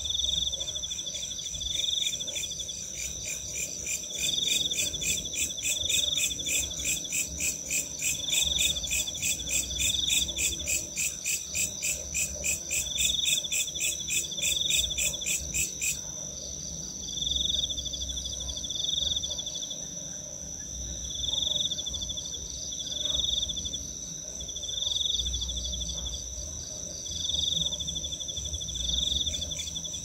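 Night insect chorus of crickets and other chirping insects: a steady high-pitched cricket trill, with a lower chirp repeating in short bouts every second or two. From about two seconds in, a louder, fast pulsing call joins, several pulses a second, then stops suddenly about halfway through.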